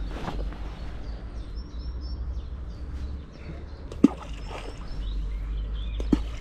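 Outdoor breeze rumbling low on the microphone, with a small bird chirping a quick run of short high notes in the first half. Two sharp clicks cut through, the louder about four seconds in and another near the end.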